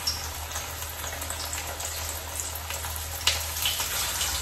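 Crumbed oysters sizzling and crackling in shallow hot oil in a frying pan as they are laid in one by one, with a sharp click about three seconds in.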